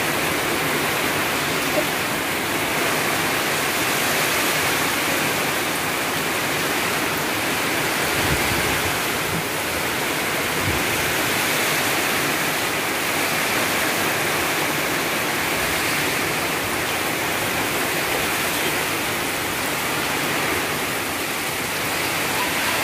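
Heavy rain pouring down in strong wind: a steady, dense rush of water.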